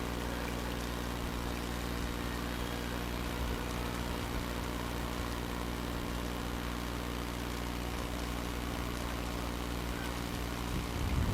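Steady hum of an electric train's onboard equipment while it stands at a station platform, with even droning tones. Near the end a gust of wind hits the microphone with a low rumble.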